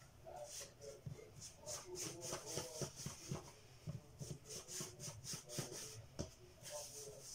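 Hands rolling a log of brioche dough on a wooden worktop: soft, repeated rubbing strokes with light pats and thuds against the wood.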